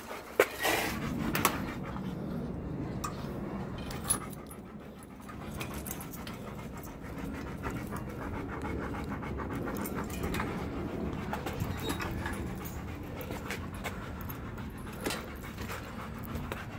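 Long-coated German Shepherd panting steadily after running alongside a bicycle, with a few sharp clicks in the first few seconds.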